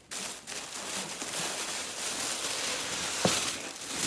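Plastic bag rustling and crinkling steadily as it is pulled open by hand, with a short knock a little over three seconds in.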